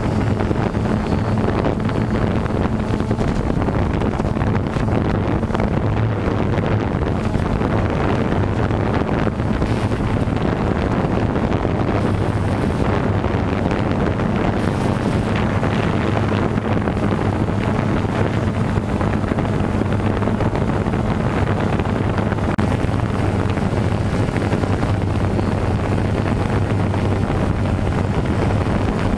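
Steady hum of a DJI Phantom 2 quadcopter's four motors and propellers, picked up by the camera it carries, with rushing wind on the microphone. The pitch holds level throughout.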